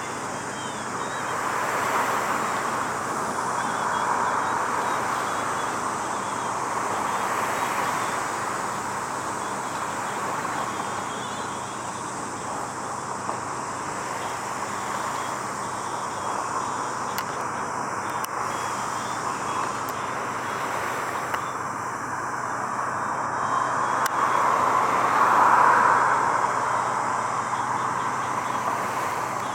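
Road traffic running steadily, with vehicles passing by in swells that grow louder and fade, the loudest about 25 seconds in.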